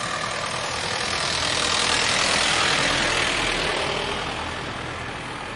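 A motor vehicle passing close by: its engine and road noise swell to a peak about halfway through, then fade, with a low engine rumble coming in just after the peak.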